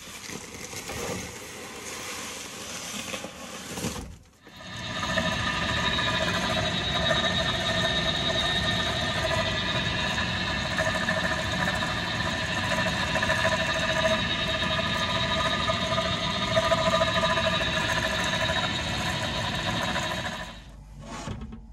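Worn indoor fan motors of a Fujitsu ducted air conditioner, run up from rest and then running steadily with a whine of several steady tones: the unit's weird noise, a sign the fan motors are failing. It is preceded by a few seconds of quieter handling sounds, and it dies away near the end.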